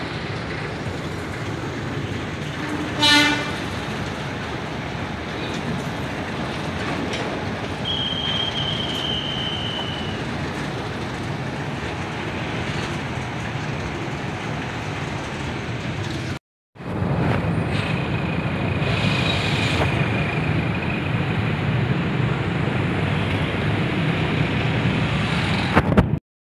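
Freight train of tank wagons rolling past at close range: a steady rumble and clatter of wagons on the rails, louder in the second half. A short horn honk sounds about three seconds in, and a thin high squeal comes and goes a couple of times.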